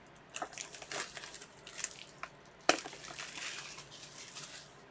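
Shrink-wrap plastic on sealed trading-card boxes crinkling and rustling in irregular bursts as the boxes are handled, with one sharp snap about two and a half seconds in.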